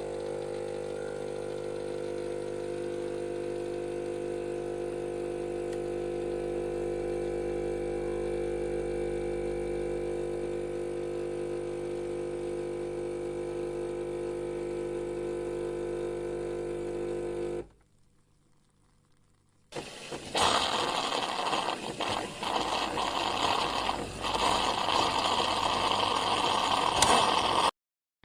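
Coffee machine running: a steady motor or pump hum made of several held tones, which stops about 17 seconds in. After a pause of about two seconds, a louder rough hissing noise starts that rises and falls unevenly until near the end.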